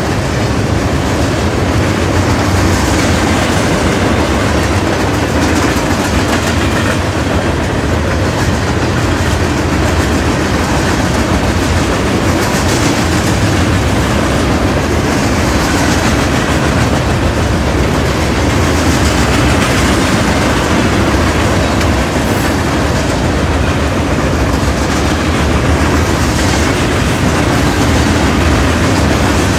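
Loaded coal hopper cars rolling steadily past at close range: a loud, unbroken rumble of steel wheels on rail.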